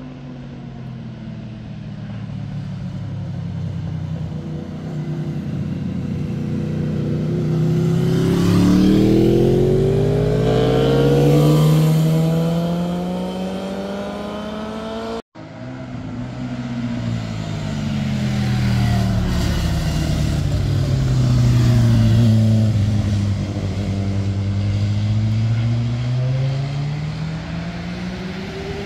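Motorcycle engines passing on a winding road. In the first half at least two bikes approach, their engine pitch rising as they accelerate and growing loudest a little before the cut. After an abrupt cut about halfway, a single motorcycle's engine note falls as it slows into the bend, then climbs steadily as it accelerates out.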